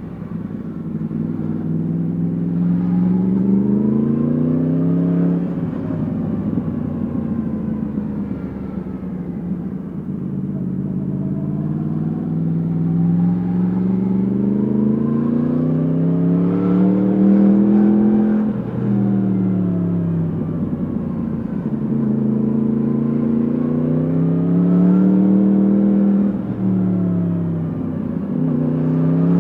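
Yamaha MT-10 SP's crossplane inline-four engine through an Akrapovic exhaust, onboard. It rises in pitch as it pulls and drops back as the throttle closes, about four times.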